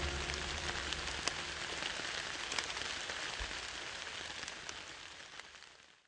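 Steady patter of falling water drops, fading out over the last couple of seconds.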